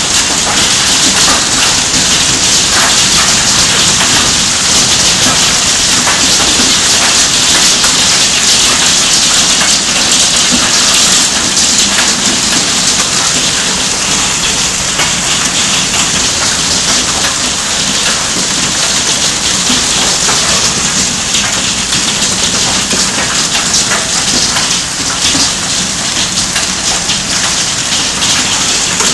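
Heavy hailstorm: hailstones and rain pelting the ground and nearby surfaces in a loud, steady, dense clatter of countless small impacts.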